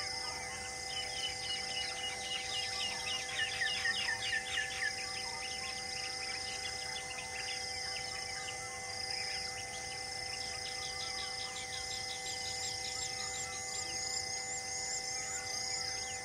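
Wild birds calling: a rapid run of falling chirps from about a second in to about five seconds, a short call repeating about once a second, and a fast series of high chirps near the end. Steady held tones run underneath.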